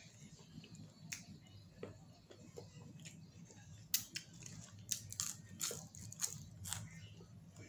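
Close mouth sounds of a person eating saucy chicken wings: chewing, lip smacks and licking of fingers, heard as irregular wet clicks, the loudest in the second half.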